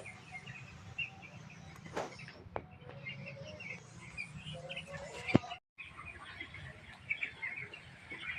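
A flock of young broiler chicks peeping, many short chirps overlapping throughout. A few sharp clicks or knocks sound over it, the loudest a little past halfway, followed by a moment where the sound cuts out completely.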